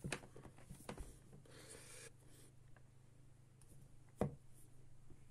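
Handling noise from a handheld hunting torch being turned in the hands: a few sharp clicks and knocks, the loudest about four seconds in, and a short scraping rasp about a second and a half in, over a low steady hum.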